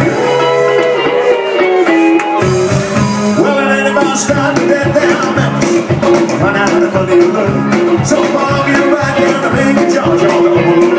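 Live band with upright double bass, electric guitar, drums and a male singer. The low end drops away for the first two seconds, then plucked bass notes come back in on a steady beat.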